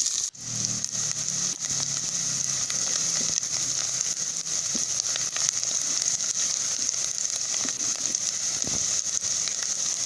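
Chopped onions frying in hot oil in a cooking pot: a steady sizzle with scattered crackles.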